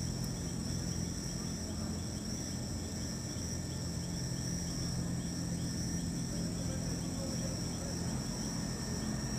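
Night chorus of crickets: a steady high trill with short chirps repeating about three times a second, over a low steady hum.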